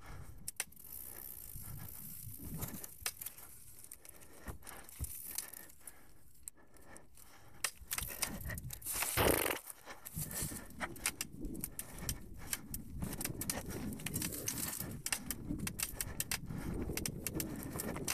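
Mountain bike rolling over a leaf-covered dirt trail: a constant metallic rattle and clicking from the bike, with low tyre rumble, and a louder rush of noise about nine seconds in.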